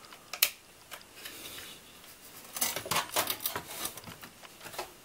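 Clicks and rattles of a graphics card and its power cables being fitted into a steel PC case: one sharp click about half a second in, then a quick run of clicks and knocks in the middle as the card is pressed into its slot.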